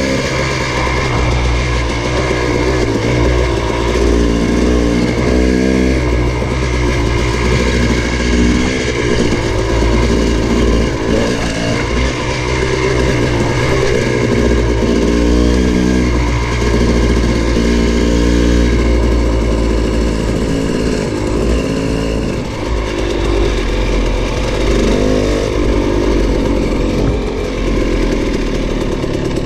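Dirt bike engine running while riding a rough dirt track, its revs rising and dropping again and again with throttle and gear changes.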